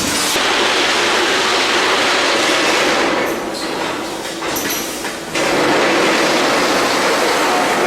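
Schlatter MG210 wire-mesh welding machine running with a steady, dense mechanical clatter. The noise eases off from about three seconds in, then comes back suddenly at full level a little after five seconds.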